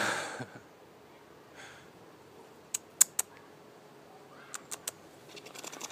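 A crow caws once, loudly, at the start, with a fainter call about a second and a half later. Then come sharp clicks, three close together around the middle and three more a little later, and a rapid scratchy clatter builds near the end.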